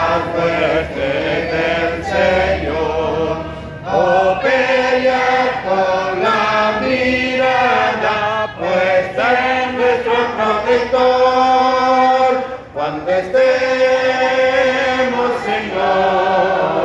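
Church congregation singing a hymn together, men's, women's and children's voices. The singing dips briefly between lines about four seconds in and again near thirteen seconds.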